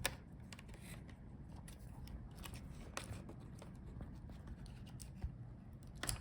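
Faint, scattered small clicks and light handling noises of a laptop's internal parts being worked on by hand, with a sharper click at the start and another near the end.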